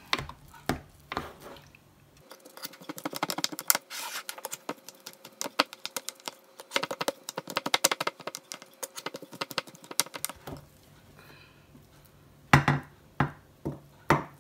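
Knife cutting through a baked fish loaf in a metal baking tray: a quick run of small clicks and scrapes as the blade taps and drags on the tray, from about two seconds in until about ten. Near the end, a few sharp knocks of utensils against the tray.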